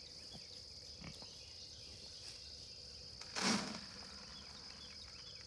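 Insects chirring steadily, a high, even buzz, with one short loud noise about three and a half seconds in.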